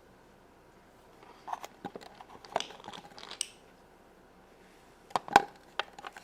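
Small plastic Shopkins toy pieces clicking and tapping against a plastic toy fridge as they are set inside. A run of light clicks comes from about a second in, then a few sharper clicks near the end.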